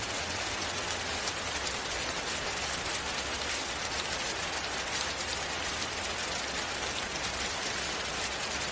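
Steady rain ambience: an even hiss of falling rain with a fine patter of drops, unchanging throughout.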